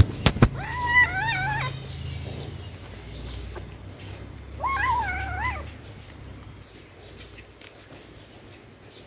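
A kitten gives two wavering, drawn-out yowling meows about four seconds apart while eating a scrap of meat, the growl-yowl of a cat guarding its food. A low rumble sits beneath them, and there are a few sharp clicks at the very start.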